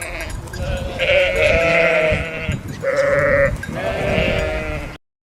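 A farm animal bleating: about four long quavering bleats in a row. The sound cuts off abruptly near the end.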